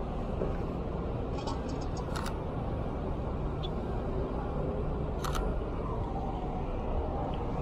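Two sharp camera shutter clicks, about two seconds in and again about five seconds in, with a quick run of faint ticks just before the first, over a steady hum of city traffic.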